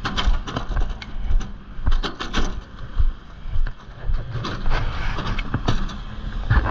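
Footsteps walking along a roadside as irregular knocks about every half second, over a steady low rumble of passing road traffic that grows louder near the end.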